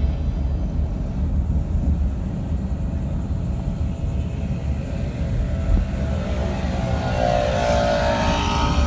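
Steady low road and engine rumble inside a car's cabin while driving. Some higher tones come in near the end.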